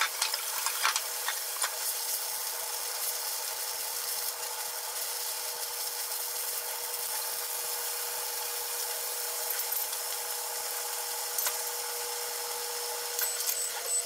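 A kitchen appliance running with a steady hum and a held mid-pitched tone over a hiss, with a few light clicks from utensils.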